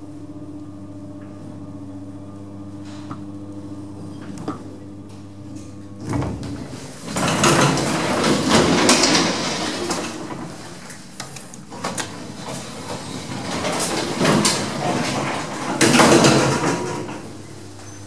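1960s Matt Scott lift running with a steady hum, then about six seconds in a long, loud stretch of sliding and clattering from the lift doors, with sharp clacks that peak twice near the end.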